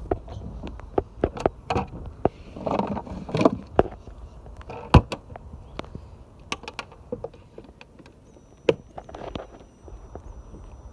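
Handling noises around the wet jet ski: scattered clicks, knocks and rubbing, with the engine not yet running. A faint steady high tone comes in about eight seconds in.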